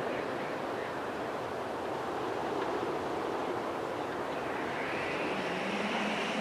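Steady wind-like rushing noise with no clear melody or beat, its hiss rising and swelling a little about five seconds in.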